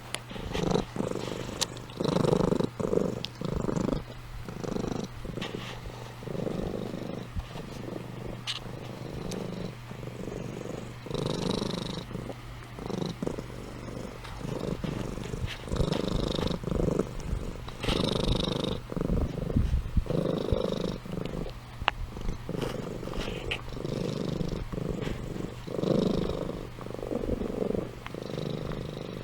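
Domestic cat purring close up, in repeated rough pulses with short breaks between them.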